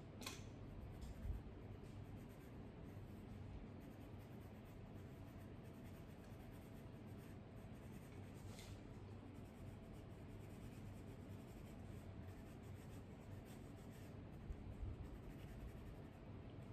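Faint scratching of a colored pencil shading on paper, with a couple of sharper strokes near the start and about halfway through.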